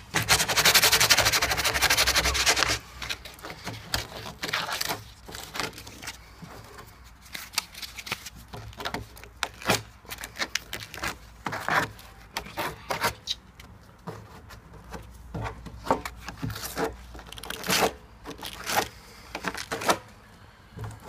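Sandpaper rubbed rapidly back and forth around a freshly drilled hole in a blue plastic barrel, smoothing the hole's edge. The loud scratching stops a little under three seconds in, followed by quieter, intermittent rubbing and short scuffs on the plastic.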